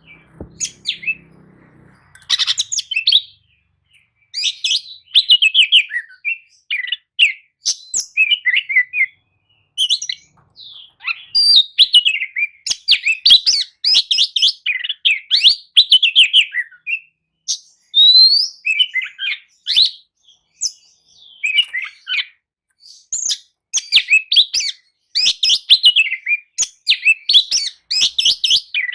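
Oriental magpie-robin (kacer) singing a loud, varied song of rapid whistles, trills and chattering phrases, almost without a break after the first few seconds. It is a full-voiced 'gacor' song of the kind played as a bait recording to make another kacer answer.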